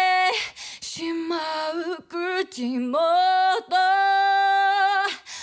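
A woman sings a Japanese pop ballad in Japanese: several short phrases, then a long held note about four seconds in.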